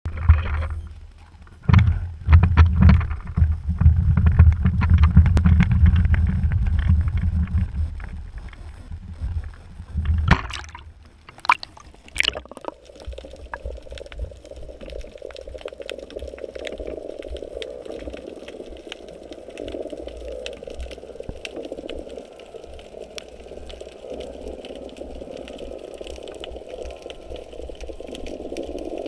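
Wind buffeting a GoPro camera rig as it is lowered from a pier, with handling knocks, then a few splashes as it enters the water about ten to twelve seconds in. After that comes the muffled underwater sound through the camera housing: a steady dull hum with faint hiss.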